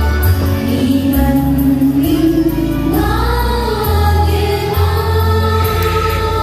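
A woman singing into a microphone over amplified instrumental backing music with a deep bass line. Her voice holds long notes and slides up in pitch about three seconds in.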